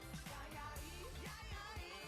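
Music with vocals over a steady beat of deep, dropping bass kicks.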